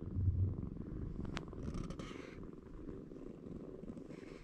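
Kitten purring close to the microphone, a steady low rumble, with a brief rustle about two seconds in.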